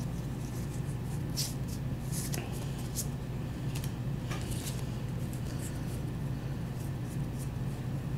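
Trading cards being handled and sorted, with soft papery rustles and light clicks every second or so, over a steady low hum.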